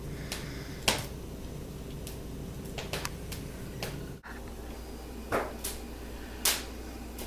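A few irregular sharp clicks and taps over a steady low hum, the sharpest about a second in and another near the end.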